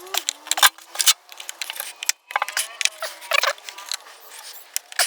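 A screwdriver working at screws on a front-load washing machine, with irregular metallic clicks and rattling strokes.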